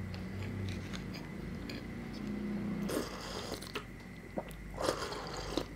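Close-miked chewing of a mouthful of food. About three seconds in come wet slurping sips from a small cup, with a few sharp mouth clicks.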